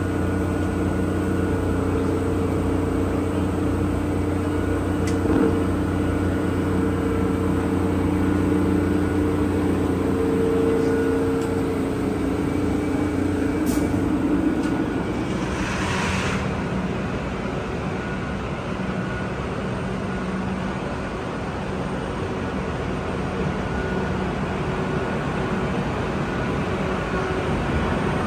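Electric locomotive 8649 (an NSW 86 class) standing with its electrical equipment and blowers running: a steady, even hum with several low tones. About fifteen seconds in the tones fade and a brief hiss sounds, after which a lower steady hum continues.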